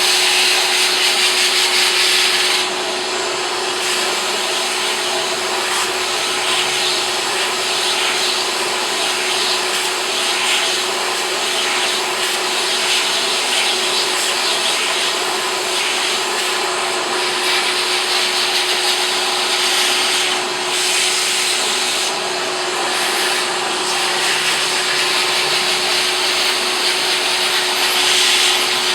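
Vacuum cleaner running steadily with a constant motor whine, sucking old developer out of a copier developer unit. The rush of air grows and eases as the nozzle moves, strongest in the first couple of seconds and near the end.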